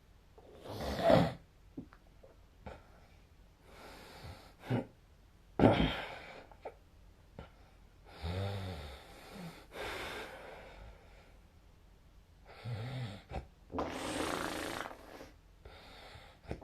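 A sleeping person snoring, with several rough breaths and snores at uneven spacing. Some snores have a low, fluttering rattle.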